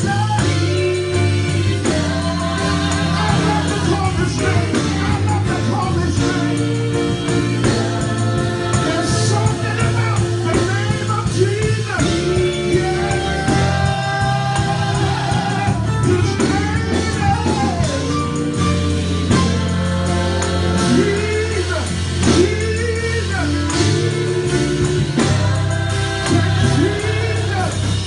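Live gospel worship music: several singers on microphones, sustained sung lines with swooping runs, over a band with a steady bass line and drum kit.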